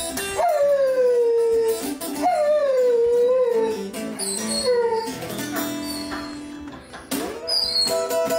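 Dog howling along to a guitar being played, several long howls that slide down in pitch, with the guitar's notes underneath.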